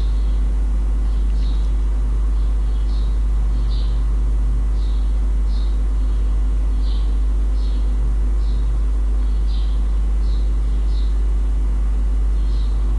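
Steady low electrical hum on the recording, with faint short high ticks about once a second.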